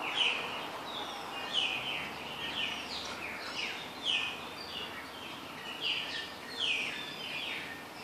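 Birds calling: a short, falling note repeated roughly once a second, over a steady background hiss.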